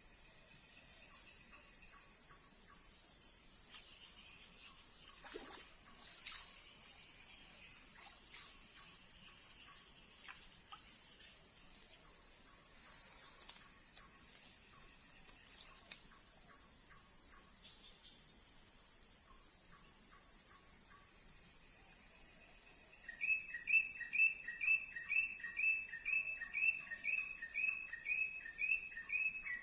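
Steady high-pitched insect drone of crickets or cicadas. From about 23 seconds in, a bird calls a quick run of short repeated notes, about two a second, louder than the drone.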